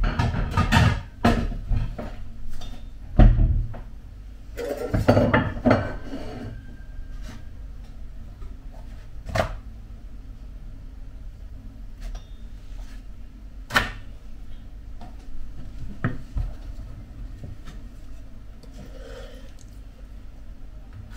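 Kitchen handling sounds: knocks and clatter of pans and utensils, with a heavy thump about three seconds in, then a few single clicks over a steady low hum.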